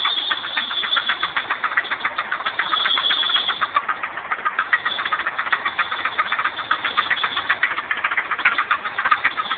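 Mazda MX-6 engine running with a fast, even ticking clatter, over a steady high-pitched belt squeal. The clatter is the unexplained fault noise the owner is asking others to identify.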